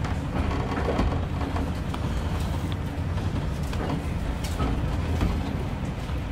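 Passenger train coach running along the track, heard from inside the carriage: a steady low rumble with scattered clicks and knocks from the wheels and bodywork.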